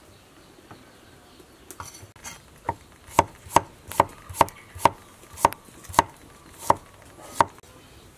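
Large kitchen knife slicing ginger on a thick wooden chopping board. The blade strikes the board about ten times, roughly twice a second, starting about two and a half seconds in. Each stroke is a sharp knock with a short ring.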